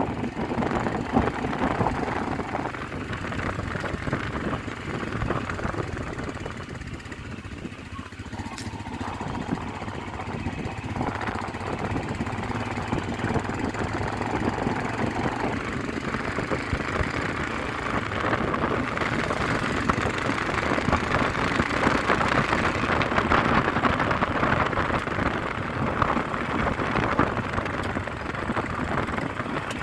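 Royal Enfield Himalayan's single-cylinder engine running just after its first service, dipping in loudness about a quarter of the way through and getting louder in the second half.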